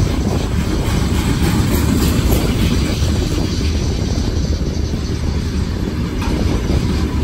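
Freight train rolling past close by: a steady, loud rumble of wagons on the rails.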